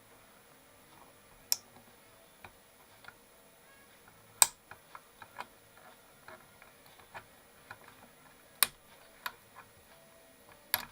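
Scattered light clicks and taps of small tools on the plastic parts of an Omega PCL1200 process calibrator as it is taken apart, with four louder sharp clicks spread through.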